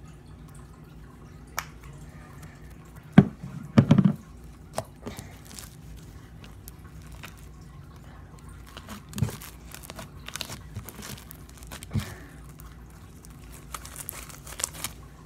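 Blue foam-bead slime being worked by hand with lotion, stretched and kneaded: sticky wet clicks, squishes and crackles, with a louder cluster of squelches about three to four seconds in.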